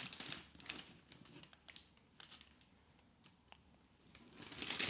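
Shoebox tissue paper rustling and crinkling as it is handled, in a few short bursts with near-quiet gaps between.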